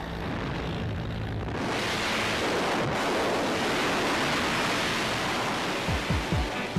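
Strong, steady rushing wind of the slipstream at the open door of a jump plane in flight, swelling up about one and a half seconds in. Near the end, the beat of a music track starts over it.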